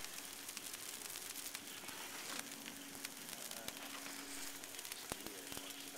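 Cellulose insulation being blown through a dense-pack fill tube into a wall cavity: a steady crackling hiss with many small ticks as the fibres rush through the hose. A faint steady hum joins a little over two seconds in.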